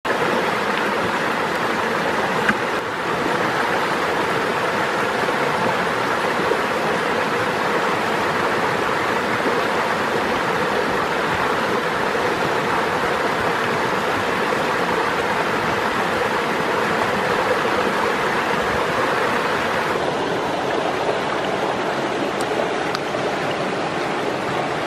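Shallow rocky stream rushing steadily over small cascades. The rush turns a little duller about twenty seconds in.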